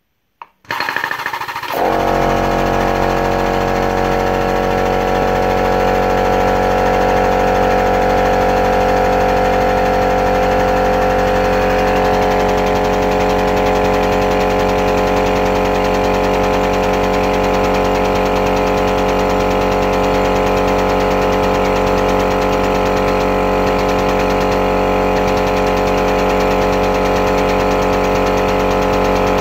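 Pneumatic (air-driven) hydraulic pump running with a steady, even mechanical hum that starts up about a second in and holds without a break, shifting slightly in tone partway through.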